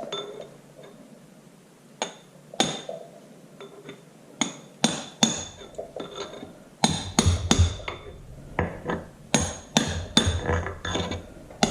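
Hammer tapping the sheet-metal outer dirt shield onto a 1954 Farmall Super MTA tractor's front wheel hub. A few spaced taps with a short metallic ring come first, then quicker taps from about seven seconds in.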